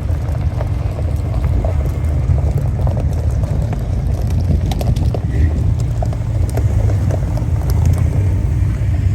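Ford Bronco driving on a rough dirt trail: a steady low rumble of engine and tyres, with scattered clicks and knocks from gravel and rocks.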